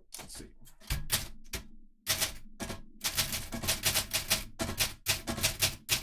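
Typing on an Olympia SM-series manual portable typewriter: a few separate key strikes, a short pause about two seconds in, then a fast run of sharp typebar clacks, several a second.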